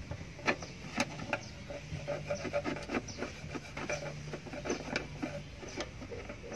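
A wooden stick scraping and tapping against the plastic and metal inside a car's windshield cowl opening: an irregular run of small clicks and scrapes.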